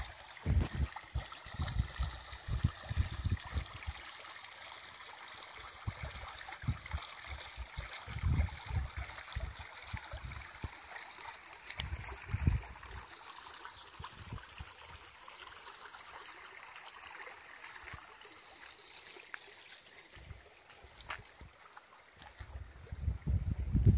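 Shallow river water trickling over rocks, a steady hiss, with irregular low thumps that are strongest in the first few seconds and again about eight and twelve seconds in.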